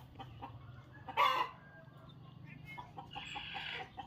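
Free-range village chickens (ayam kampung) clucking, with a short loud squawk about a second in and a rooster crowing near the end.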